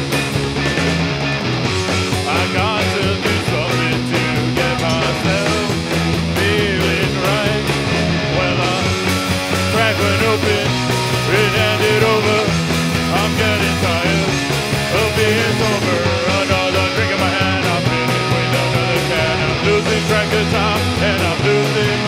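Rock band playing live, with electric guitar, bass guitar and drum kit, at a steady loud level.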